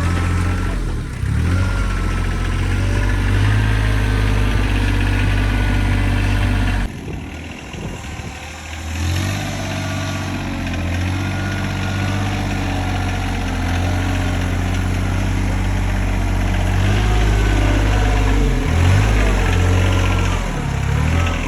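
Tractor engine running steadily at low revs, with a sudden break about seven seconds in before the engine sound picks up again.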